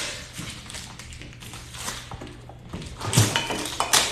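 Cardboard box of a mini fridge being worked open, with packing tape being pulled and cardboard scraping and rustling. There is a knock and a burst of scraping about three seconds in.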